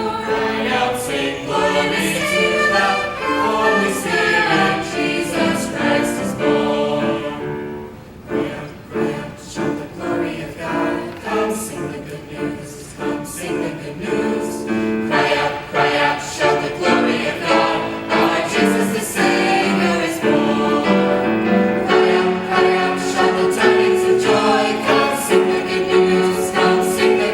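Church choir singing a gospel song with instrumental accompaniment; the music drops briefly about eight seconds in, then builds again.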